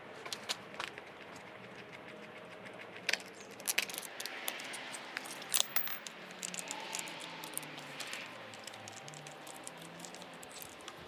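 Hand tools undoing the bolts of motorcycle handguard mounts: scattered sharp metal clicks and light clinking and rattling of the tool and hardware.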